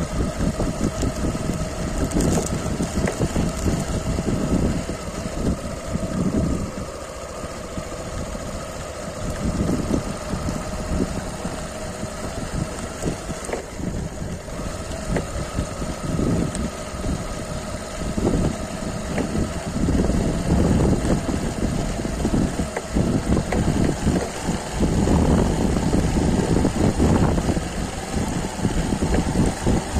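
Motorcycle engine running at a steady pitch during the ride, with an uneven low rumble of wind on the microphone.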